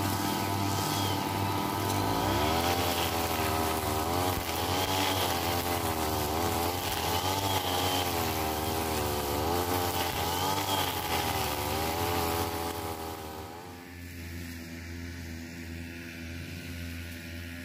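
Two-stroke backpack brush cutter running close by, its engine pitch dipping and rising every couple of seconds as the head cuts through thick grass. About three-quarters of the way through the sound drops to a quieter, steady engine drone.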